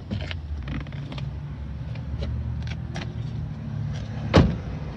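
A few light clicks and knocks from the Holden VF Commodore wagon being handled, then one solid thump near the end, likely a door or panel being shut, over a steady low rumble.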